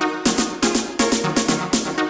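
Background electronic dance music with a steady, driving beat; the full beat comes in just after the start.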